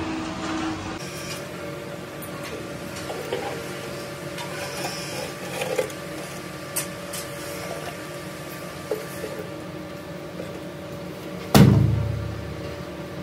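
Steady hum of workshop machinery with scattered light clanks and knocks, and one loud heavy thud near the end that dies away over about a second.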